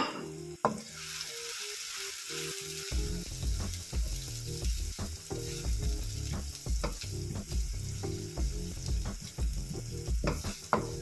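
Chopped red onion and garlic sizzling in hot cooking oil in a nonstick wok: a steady frying hiss, with the scrape and tap of a wooden spatula stirring them around the pan.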